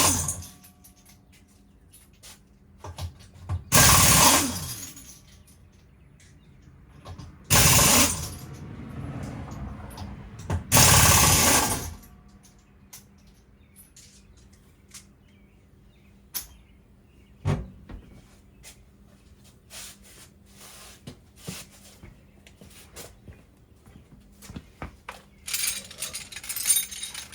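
Power tool running in four short bursts of about a second each, the last one longer, then scattered clicks and knocks of hand work on the car.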